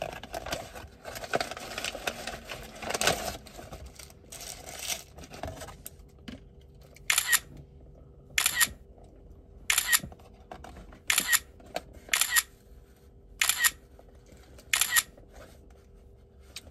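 Paper sandwich wrapper crinkling and rustling as it is unwrapped for the first five seconds or so, then seven camera-shutter clicks about a second and a quarter apart.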